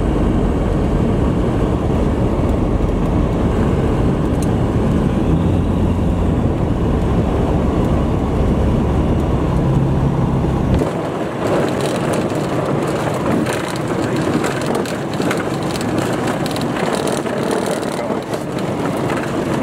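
Piper Sport (PS28 Cruiser) light aircraft heard in the cockpit: its engine hums steadily at low power through the flare, then about eleven seconds in the wheels settle onto the grass strip. The low engine hum drops away and the airframe rattles and rumbles as it rolls over the bumpy grass.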